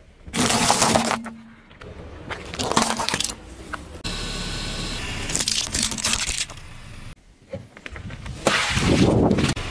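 A car tyre rolling over and crushing things in a series of short crunching, cracking bursts: walnut shells cracking, then hard plastic light-up glasses snapping, then a balloon filled with water beads squashing near the end.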